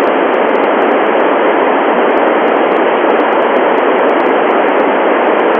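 Steady FM static hiss from the Icom IC-9700 receiving the Tevel-7 FM satellite downlink: the squelch is open with no station on the channel, so only noise comes through.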